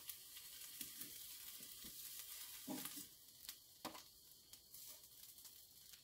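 Tuna steaks sizzling faintly as they are lifted off a hot charcoal grill grate with metal tongs, with several light clicks and taps of the tongs against the grate and plate, the sharpest about three and four seconds in.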